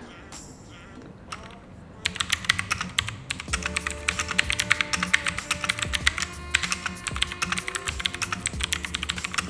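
Rapid typing on a Rexus MX3.2 mechanical keyboard with clicky blue switches: a fast stream of sharp clicks starting about two seconds in. Background music plays underneath.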